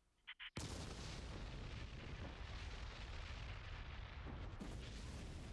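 Sound effect of a supervolcano eruption: after two short high blips, a loud, deep, continuous rumble with crackling starts abruptly under a second in and runs on steadily.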